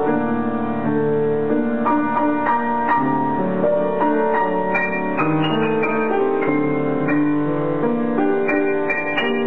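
Grand piano being played: a melody of single notes over sustained chords.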